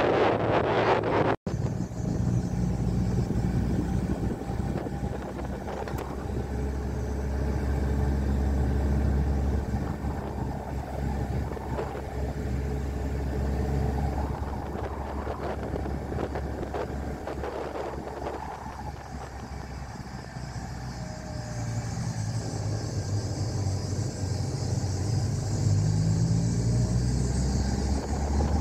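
Car engine running with road rumble as the vehicle drives along an unpaved track, the engine note rising near the end as it speeds up.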